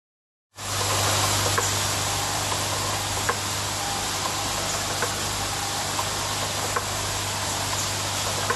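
TX-148 thread-cutting machine running: a steady motor hum under a broad hiss, with faint light clicks every second or two. It starts abruptly about half a second in.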